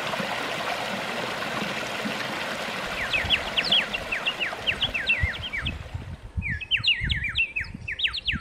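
A small stream runs trickling over rocks and fades away over about six seconds. From about three seconds in, a songbird sings quick runs of short chirps that slide down in pitch, a second run coming near the end, over low thumps.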